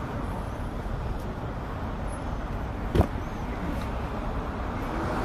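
City street traffic: a steady rumble of road noise as a car drives past, with one sharp knock about three seconds in.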